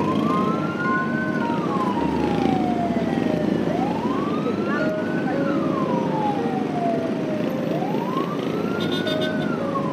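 A siren in slow wail mode: the pitch rises for about a second and a half, then falls more slowly, repeating about every four seconds, three times in all.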